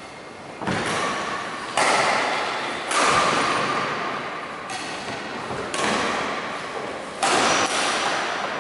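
Badminton rackets striking a shuttlecock during a rally, about five sharp hits roughly a second apart, each ringing on in the echo of a large hall.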